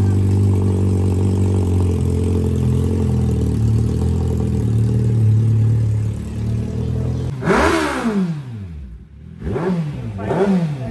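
Suzuki Hayabusa's de-catted inline-four running loud at a steady pitch, through headers with no catalytic converter. About seven seconds in the sound changes abruptly to a string of revs, the pitch sweeping up and falling back several times.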